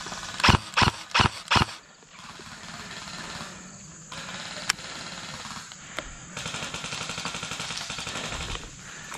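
Airsoft gun firing four sharp shots in quick succession, about a third of a second apart. Later come two lone sharp clicks, and a steady hiss for about two seconds near the end.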